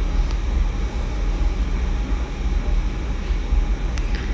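Steady low rumble of background noise, like an air conditioner or fan running in the room, with a faint click about four seconds in.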